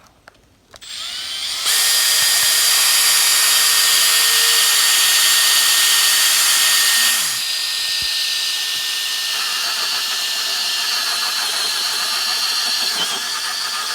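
Power drill turning a hole saw that cuts an entrance hole through a wooden birdhouse panel, a steady whine over the cutting noise. It starts about a second in, runs loudest for about five seconds, then carries on a little quieter.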